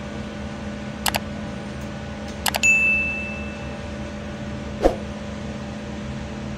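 Subscribe-animation sound effects: mouse-click double clicks about a second and a half apart, then a short bell ding that rings for about a second. Under them a steady low hum, and a single knock about five seconds in.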